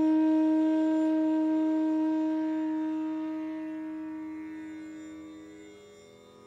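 Background music: a single long instrumental note that starts suddenly and fades away steadily over about six seconds.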